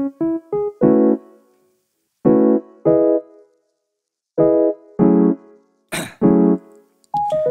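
Background music: solo piano, three quick short notes and then a series of separate chords, each cut off short with silence between them.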